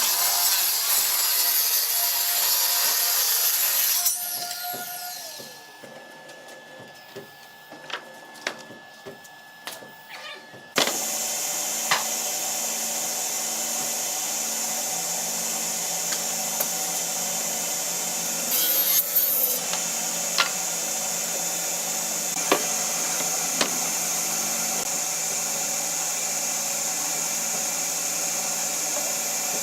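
Woodworking power tools on wood, most likely plywood for cabinets. A loud saw cut dies away about four to six seconds in, followed by a few quiet seconds with scattered clicks and knocks. Then a power tool's motor runs steadily, with occasional sharp ticks.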